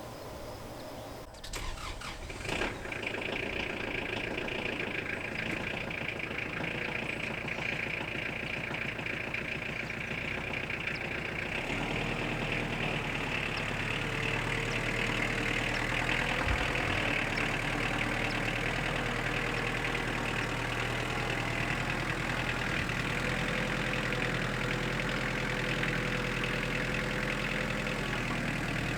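A Wood-Mizer portable sawmill's engine is started about a second and a half in and settles into steady running. About 12 seconds in the sound deepens and takes on a steady low hum, then runs on evenly.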